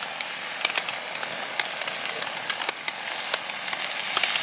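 Beef skirt steak sizzling on a small wire grill, with scattered crackles and pops. The sizzle grows louder about three seconds in.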